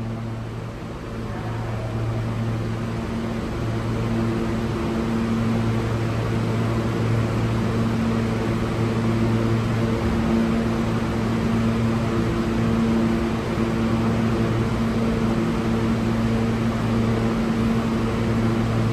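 New York City subway train creeping slowly toward the platform, its steady electric hum and rolling noise growing gradually louder as it nears.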